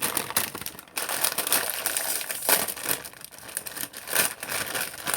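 Crinkly plastic snack bag of Flamin' Hot Cheetos being handled, rustling and crackling continuously.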